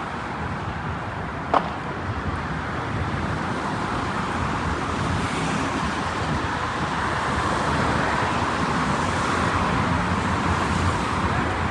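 Steady road traffic noise, growing a little louder over the first several seconds, with one sharp click about a second and a half in.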